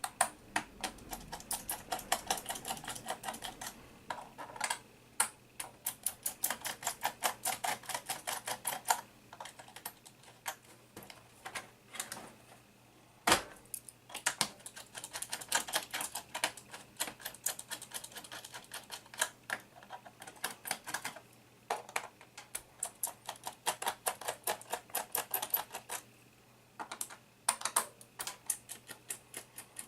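Quick runs of small, sharp clicks from hands working on an Acer E5-411 laptop during disassembly, coming in bursts of a few seconds with short pauses. One louder single click stands out about 13 seconds in.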